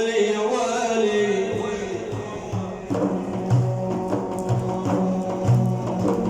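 Arabic maddah song: a sung phrase ends about a second and a half in, then an instrumental passage follows with a regular drum beat under sustained instrument tones.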